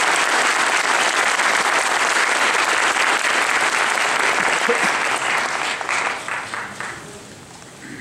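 Audience applauding at the end of a talk, a dense clapping that dies away about six to seven seconds in.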